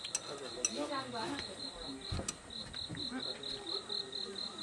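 An insect chirping in a high, even pulse about five times a second, with faint voices underneath and a short knock about two seconds in.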